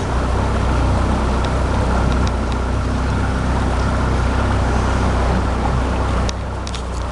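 A Lund fishing boat's outboard motor running steadily at low speed, a deep steady hum under an even hiss of wind and water. It dips a little in level about six seconds in, with a few light clicks.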